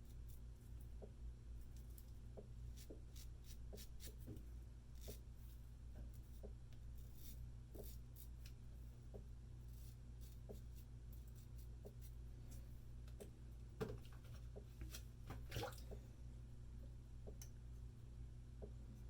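Straight razor with a Feather Pro Guard blade scraping stubble off lathered skin in short, faint, crackly strokes, with a louder pair of strokes about two-thirds of the way through. A low steady hum runs underneath.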